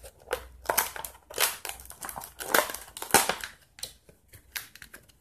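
Plastic bag of a soft-plastic swimbait being pulled open and handled, crinkling and crackling in irregular bursts.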